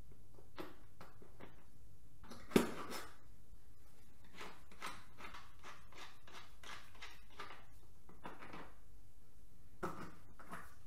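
Clicks, taps and knocks of hard parts and tools being handled during disassembly work, with one sharp knock about two and a half seconds in, a run of small ticks after it, and a lighter knock near the end.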